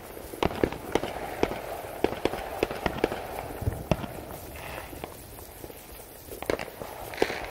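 A ground firework fountain spraying sparks: a steady hiss broken by sharp crackles about four or five times a second.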